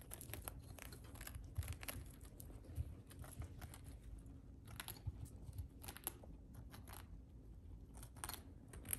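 Guinea pigs nibbling and crunching dried hay treats: faint, irregular small crunches and crackles.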